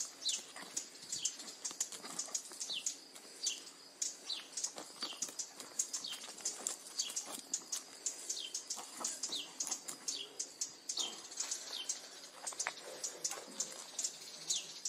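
Small birds chirping busily: a quick run of short, high, downward-sliding chirps, several a second, with no pause.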